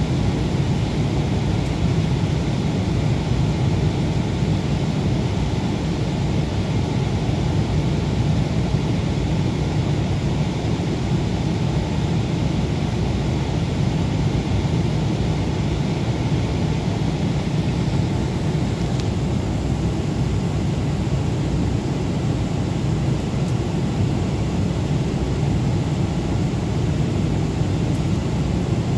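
Cabin noise of a Boeing 767 in cruise at 34,000 feet: a steady, low rush of airflow and the twin turbofan engines.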